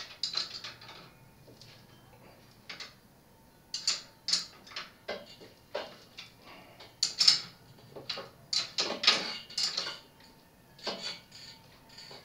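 Irregular sharp metallic clicks and clinks, some in quick clusters, as a 15mm wrench works the rear wheel's axle nuts and the wheel is shifted in the frame's dropouts to centre it.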